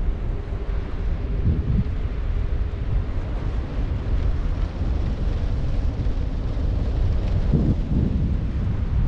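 Wind buffeting the microphone of a camera hung from a kite line: a loud, steady low rumble with stronger gusts about a second and a half in and again near the end.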